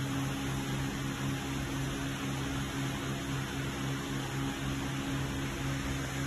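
Steady electrical and machinery hum: a few low, even tones over a constant hiss, with no knocks or changes.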